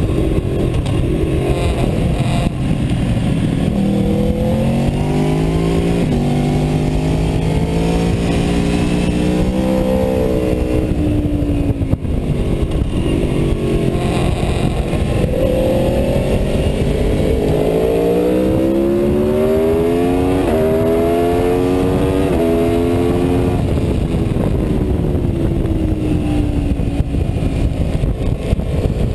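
Aprilia Tuono V4 motorcycle's V4 engine at full throttle on track, its pitch climbing through the gears with a step down at each upshift, then falling off twice as it slows for corners.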